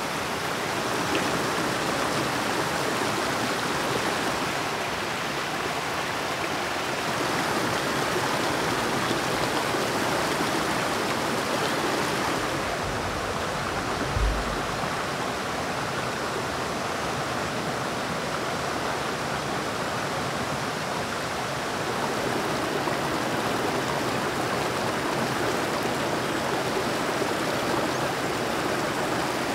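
A fast river rushing over rocks and small rapids, a steady, even rush of water. One brief low thump comes about halfway through.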